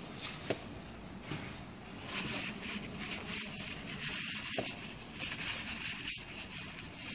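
Dry cloth rubbing over the metal cover of a motorcycle's handlebar brake fluid reservoir, wiping it clean in many quick scrubbing strokes from about two seconds in. A single sharp click comes shortly before.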